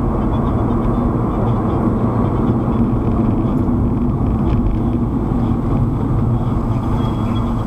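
Steady road and engine noise inside a moving car's cabin, picked up by a dashcam, a low even din with no horn or other sudden sound.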